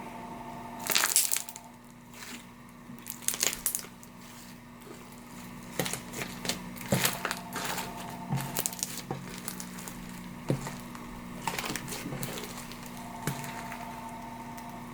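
Slime mixed with foam beads being squished and stretched by hand, giving irregular soft crackles and pops.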